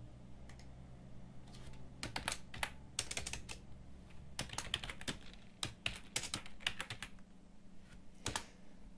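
Computer keyboard being typed on: a few scattered keystrokes in the first two seconds, then a quick run of keystrokes that stops shortly before the end.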